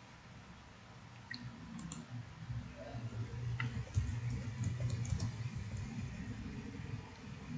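Computer keyboard keys clicking in a soft, irregular patter as a command is typed, over a faint low hum.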